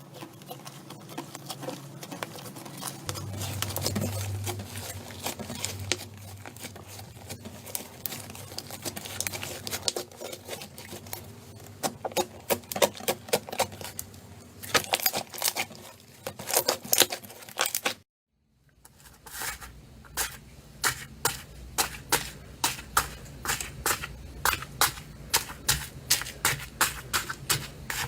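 Slime being squeezed and pressed by hand, giving dense wet crackling and clicking. After a short break about 18 s in, it turns to a steady run of pops about three a second.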